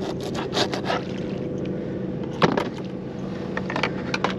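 A steady low hum with scattered clicks and knocks as fishing rods, line and tackle are handled aboard a boat. The loudest knock comes about halfway through, and a quick run of clicks comes near the end.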